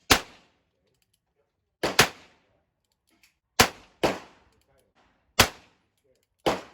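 A gun fired six times at an uneven pace, each shot sharp and followed by a short decaying ring. The fourth and fifth shots come close together, about half a second apart.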